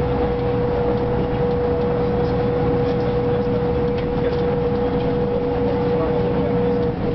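Ikarus 260 city bus running at a steady speed, heard from inside the passenger cabin: a steady engine and road rumble with a whine held at one pitch, which falters near the end.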